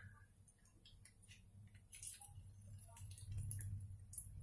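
Hot ghee in a frying pan crackling faintly, scattered small irregular pops and ticks, over a low steady hum.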